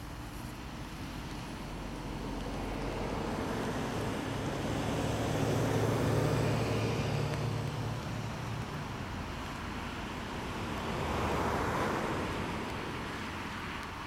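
Road traffic passing. A bus goes by with a low engine drone that swells to its loudest about six seconds in and fades, then a car passes with a rush of tyre noise that rises and falls a few seconds later.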